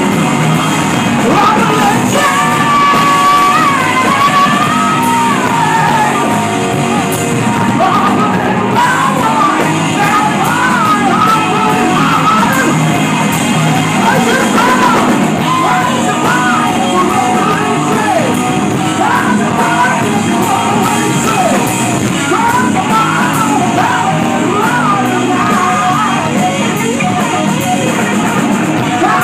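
Live hard rock band playing loud, a man singing and yelling over distorted electric guitar, in the echo of a club hall.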